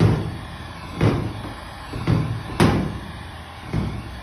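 Stanley heat gun blowing hot air to shrink plastic film over a dog chew, with a dull thump-like surge about once a second and a sharp click about two and a half seconds in.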